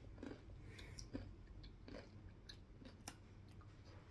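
Faint chewing of a crunchy snack chip, with a few soft crunches spread through.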